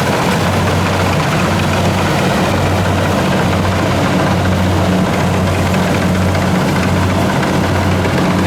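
Rice combine harvester's diesel engine running steadily with a constant low hum.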